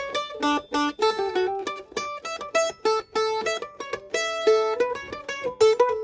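Gibson A1 mandolin played with a pick: a quick tune of single plucked notes, several a second, each ringing briefly.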